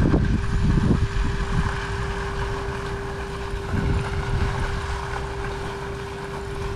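Wind noise on the microphone, an uneven low rumble that is strongest in the first second, over a steady hum.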